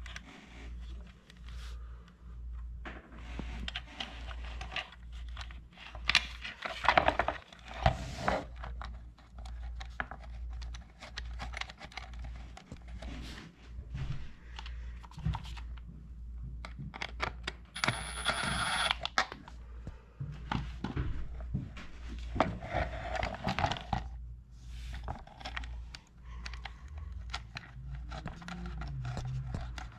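Hands fitting a scooter taillight and its metal mounting plate: irregular scrapes, clicks and rustling, with a longer harsher scrape about two-thirds of the way through. A low steady hum runs underneath.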